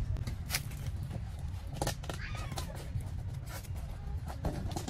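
Scattered clicks and rustles from handling a potted seedling and its plastic pot, over a steady low rumble. A short meow-like animal call comes about two seconds in.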